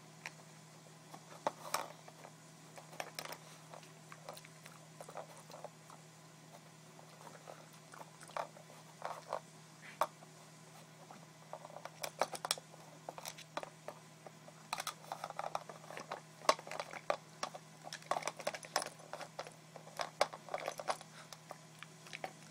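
Pembroke Welsh Corgi crunching food from an Aikiou plastic puzzle feeder, with clicks of the plastic lids as it noses at them, in irregular clusters of short crunches that come thickest in the second half.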